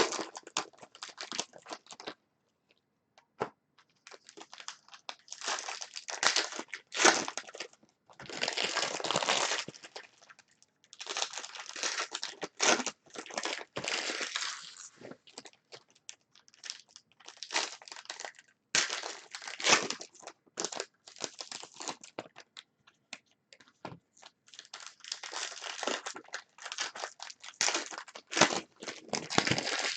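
Trading card packs being torn open and their wrappers crinkled and crumpled, in irregular bursts of rustling with short pauses between them.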